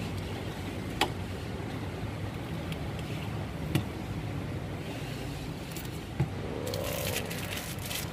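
Steady hum of road traffic, with three sharp clicks spread through it, one about a second in, one near four seconds and one past six seconds. Near the end comes the crinkling of a small plastic bag being handled and tied.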